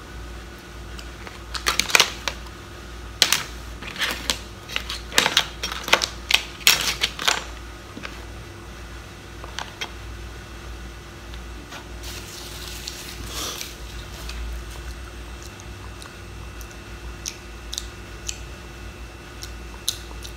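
Cooked mud crab claws being cracked and eaten: a run of sharp shell clicks and crunches in the first third, then a brief rustle around the middle and scattered softer clicks.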